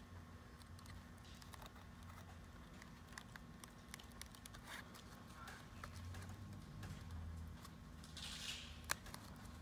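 Kevlar scissors snipping through thin foam drawer liner: faint, irregular snips and clicks of the blades, with a brief louder rustle near the end followed by a sharp click.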